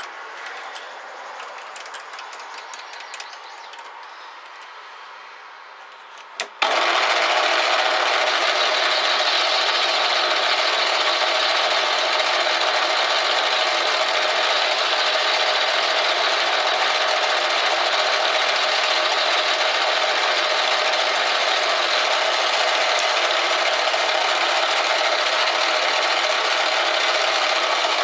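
A few faint clicks, then about six and a half seconds in a metal lathe switches on abruptly and runs steadily at about 350 RPM, a loud, even machine whir.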